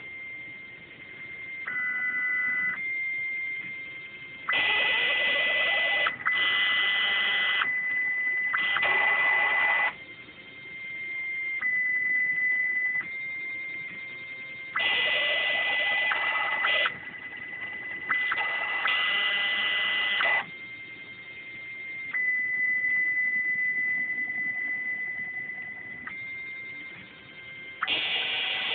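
Stepper motors of a Bluumax CNC router kit driving its axes as it plots with a pen: a steady high whine whose pitch steps slightly with each new move. Louder, buzzier stretches of a second or two start and stop abruptly.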